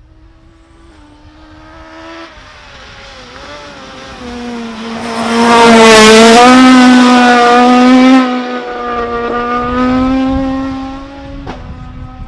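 Rally car engine approaching at speed, its note bending with gear changes and growing louder until it is very loud as the car passes close. Then it falls away and fades.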